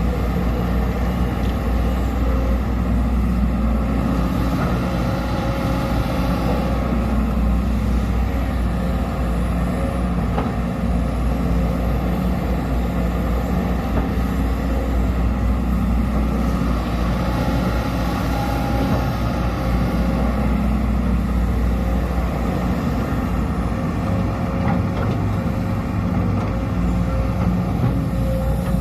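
Sumitomo SH210 hydraulic excavator's diesel engine running steadily at working revs, a constant low drone, as the machine grades a muddy slope.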